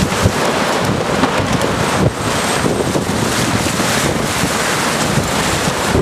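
Strong storm wind rushing and buffeting the microphone in a loud, steady roar of gusts.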